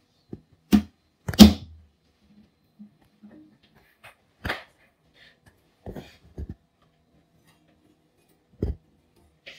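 A large cleaver and pieces of raw tuna knocking on a bamboo cutting board: about six separate sharp knocks with a dull thud under them, the loudest about a second and a half in.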